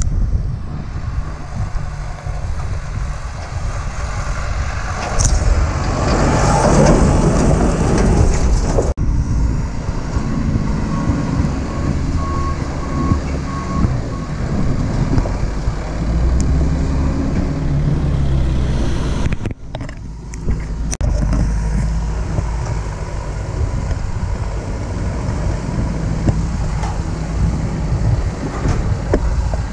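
Diesel farm tractors running as they haul silage trailers, a steady low engine rumble. The sound cuts abruptly twice, about nine and about twenty seconds in.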